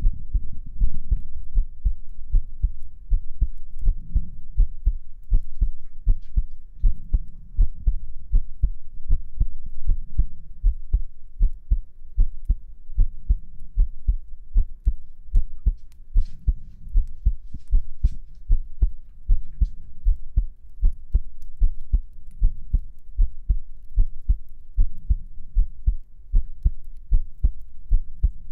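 Human heartbeat picked up close to the chest: a steady, regular rhythm of low, soft thumps.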